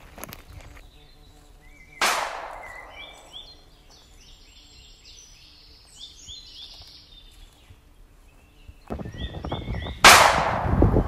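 Two gunshots about eight seconds apart, the second louder, each with a short ringing tail. Between them a bird calls in a run of short chirps.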